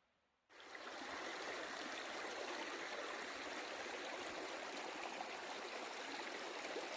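Steady rushing of a flowing stream, starting abruptly about half a second in.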